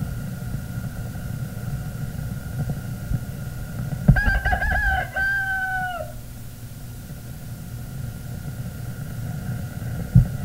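A rooster crows once, about four seconds in, for about two seconds, in two parts with the end falling away: the Pathé trademark rooster opening an RKO Pathé film. Under it runs the steady hiss and rumble of an old optical film soundtrack.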